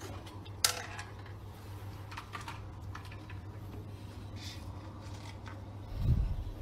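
A steady low hum under a few scattered sharp clicks, the sharpest about half a second in, and a low thump near the end.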